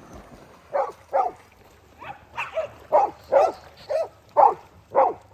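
A dog barking repeatedly: about ten short barks in quick succession, starting about a second in.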